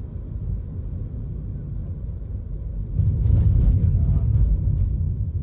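Low, steady rumbling noise that grows louder about three seconds in, with faint rattling over it.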